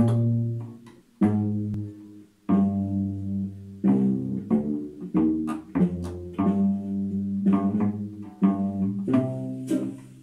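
Cello played with the bow: a simple tune of short, accented notes, each starting sharply and dying away.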